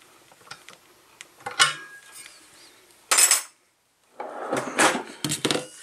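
Metal clinks and clatter of a wrench working the nuts on a steel cap plate bolted over an exhaust header's flange, with the header and tools handled on a wooden bench. Scattered light clicks come first, a louder clatter a little past halfway, and a cluster of heavier knocks and rattles near the end.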